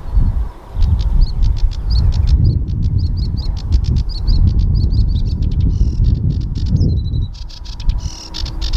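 A warbler singing a fast run of short, repeated high notes, with buzzier notes and a brief thin whistle near the end. Loud gusting wind rumble on the microphone, which is the loudest sound, sits underneath.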